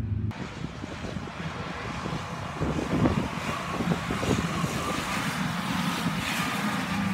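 Stock car engines running on the oval as a car drives past, the engine note rising and falling. A steady hiss of wind noise on the microphone lies under it.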